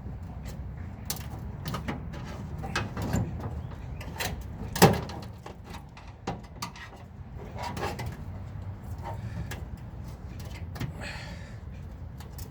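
Irregular clicks, taps and scrapes of hand tools working on a microwave oven's metal casing while it is pried apart, with one louder clank about five seconds in and a short scrape near the end.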